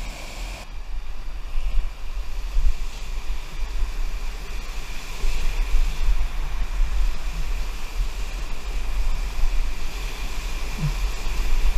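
Whitewater rapids rushing and crashing around a stand-up paddleboard, in a steady, surging roar with heavy low rumble and buffeting on the board-mounted camera's microphone.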